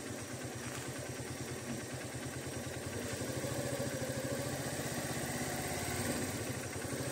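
Vehicle engine idling steadily with a fast, even pulse.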